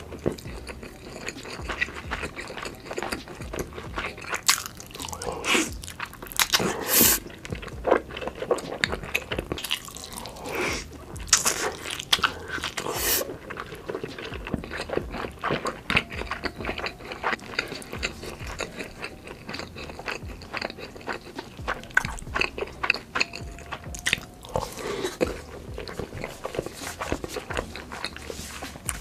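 Close-miked eating of Spam dipped in cheese sauce: biting and chewing, with many irregular crunches that are loudest in the first half.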